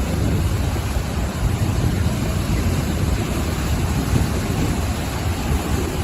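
Ocean surf washing onto the shore: a steady, unbroken rush of waves with a strong low rumble underneath.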